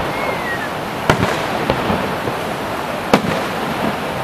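Fireworks shells bursting overhead: sharp bangs right at the start and about a second in, a smaller pop soon after, and another loud bang a little after three seconds, over a steady rushing background.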